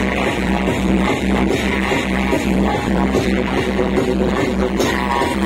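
Loud dance music with a steady bass beat, about three beats a second, played over a large outdoor DJ sound system.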